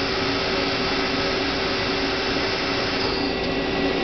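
Hyundai HiT-30M CNC turning center's spindle spinning its chuck, a steady machine hum with a high whine. About three seconds in, the whine falls and fades as the spindle slows to a stop.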